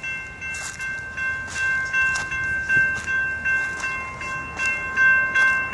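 Electronic railroad-crossing bell ringing in a steady, repeating pattern of about two strikes a second, each ringing on. The warning signals were set off by a malfunction, with no train approaching on the unused line.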